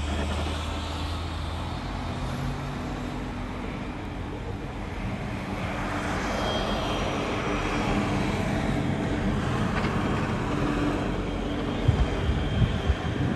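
Road traffic at a snowy intersection: a vehicle engine humming steadily, then the hiss of another vehicle passing that swells about halfway through and fades, with a few low bumps near the end.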